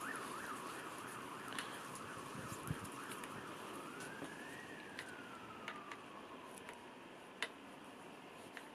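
A faint emergency-vehicle siren: a fast yelp that stops about half a second in, then one slow wail that rises and falls. A few light clicks come from hands working small screws into a scooter stem.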